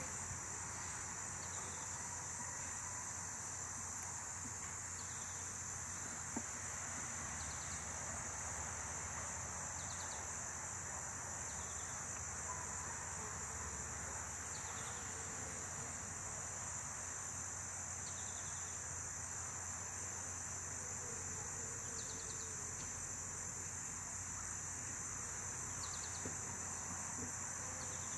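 Steady high-pitched insect chorus, with short chirps repeating every couple of seconds.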